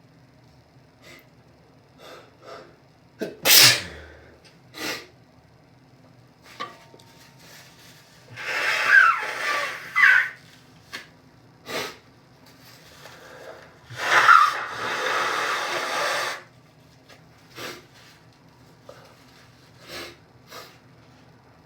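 A person in an allergic sneezing fit: about four loud, sudden sneezes, the last trailing a long breathy exhale of about two seconds, with short sniffs and breaths between them.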